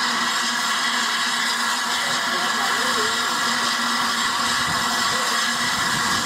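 Steam hissing steadily from the standing LNER A3 locomotive Flying Scotsman, with a steady low hum underneath.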